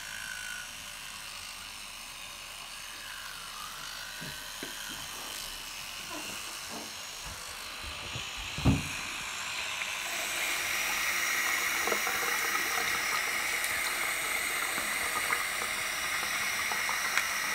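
Electric toothbrush buzzing steadily, getting louder from about ten seconds in. A single sharp knock about nine seconds in.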